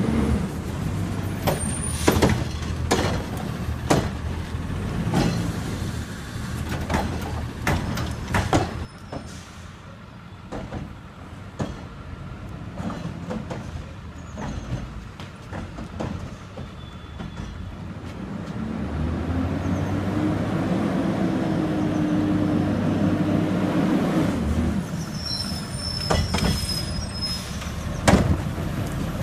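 A garbage truck's engine running, with scattered knocks and clanks through the first third. Past the middle the engine revs up, holds for about six seconds and drops back, and a thin high squeal follows near the end.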